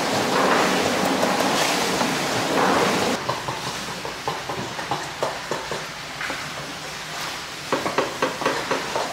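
A steady rushing noise for about three seconds that cuts off suddenly. Then a knife scrapes and taps on a plastic cutting board as squid is filleted, with a quick run of sharp taps near the end.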